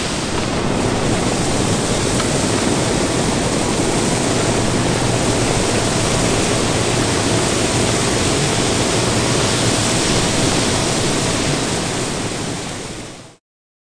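Plasser & Theurer RMW 1500 ballast cleaning machine at work: a steady, dense rush of machinery and ballast moving along its conveyor wagons, fading out near the end.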